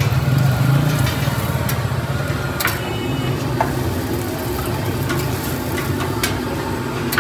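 Eggs and buns sizzling on a flat steel griddle, with a few sharp clinks of a metal ladle against the griddle as chutney is spread, over a steady low hum.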